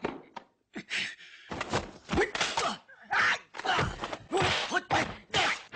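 Kung fu film fight sound effects: a quick run of about a dozen punch and block impacts, with the fighters' short shouts and grunts mixed in among the hits.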